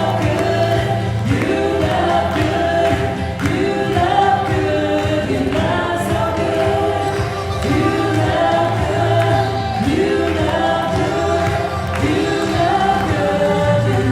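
Worship music: several voices singing a gospel worship song together in long held notes over steady instrumental backing.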